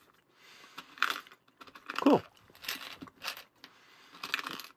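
Small plastic mini gumball machine's knob being turned, clicking and rattling in several short spells as gumballs shift inside. A brief squeak slides down in pitch about two seconds in.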